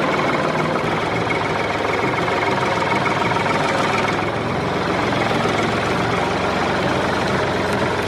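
Tractor-style engine idling with a steady chug that keeps an even level throughout.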